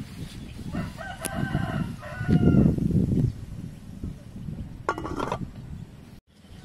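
A rooster crowing: one long call of about a second and a half, then a shorter call about five seconds in, over a low rumbling background noise that is loudest around the middle. The sound cuts out briefly near the end.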